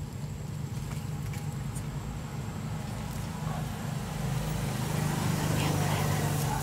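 A steady low engine hum that grows a little louder in the last couple of seconds.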